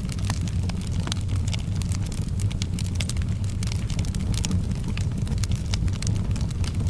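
Wood fire crackling in a fireplace: many small sharp pops and snaps, irregular and close together, over a steady low rumble.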